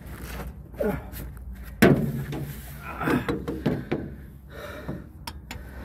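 Several sharp metal clunks and knocks, the loudest about two seconds in, as a replacement mechanical fuel pump is pushed and wiggled against a Pontiac 350 V8's block to seat its lever on the cam.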